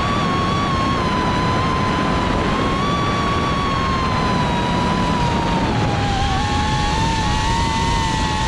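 QAV cinewhoop FPV drone's motors and ducted propellers whining in flight, heard close up from the drone's onboard camera over a rushing noise. The pitch drifts up and down with throttle, and about six seconds in it dips and splits into two close tones.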